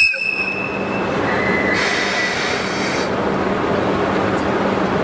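JR East ED75 electric locomotive rolling slowly, its steel wheels squealing against the rail: a sudden high ringing squeal right at the start fades over about two seconds, a second squeal with a brief hiss comes around two to three seconds in, over a steady low hum from the locomotive.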